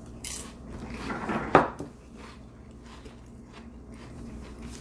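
Mouth noises of someone chewing a sardine on a cracker, with one sharp click about a second and a half in.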